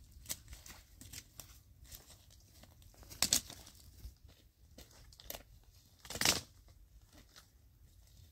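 Dry branches being snapped off by hand while twigs and dead leaves crackle and crunch underfoot, with two louder cracks, about three seconds in and about six seconds in.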